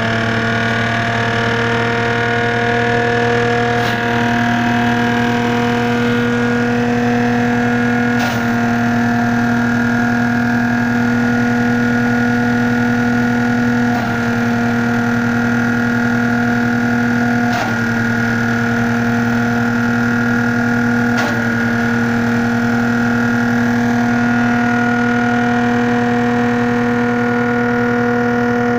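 Mahindra 215 mini tractor's diesel engine running steadily under load, driving a PTO-powered shredder that is chopping dry palm fronds. A few sharp knocks break in along the way.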